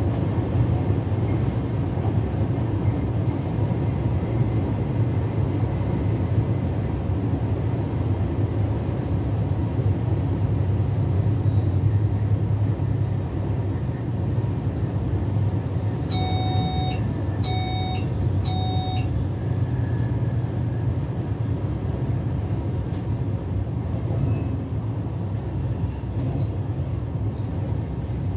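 Steady running rumble of an SBB DPZ double-deck S-Bahn train hauled by an SLM Re 450, heard from the driver's cab of the control car. About halfway through, three short electronic beeps sound in a row, a little over a second apart.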